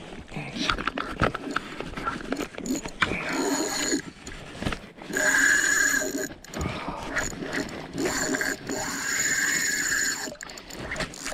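Spinning fishing reel whirring and clicking in spells, with two longer, louder runs of whine about halfway through and again a little later, amid knocks and clicks from handling the rod and reel.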